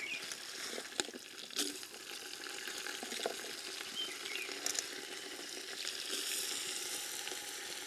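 Dried red chillies and peppercorns sizzling steadily in hot oil in an aluminium pot, with a few sharp clicks through it.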